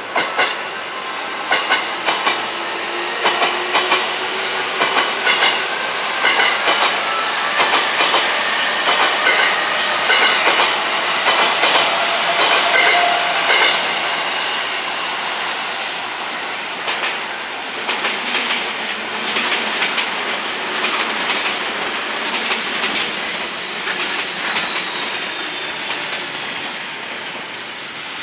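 Electric train passing, its wheels clicking in groups over the rail joints, growing louder toward the middle and fading away toward the end. A high whine falls in pitch in the second half.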